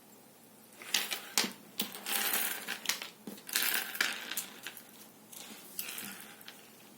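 Small hard objects being handled: a run of sharp clicks mixed with rustling and scraping, starting about a second in and ending about a second before the end.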